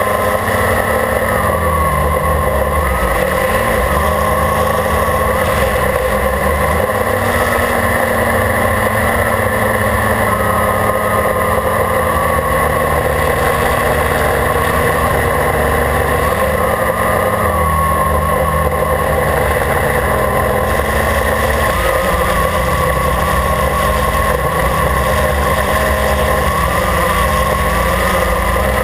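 Quadcopter's electric motors and propellers whining steadily in flight, recorded close up by the camera mounted on the drone itself. The pitch wavers slightly up and down as the throttle shifts.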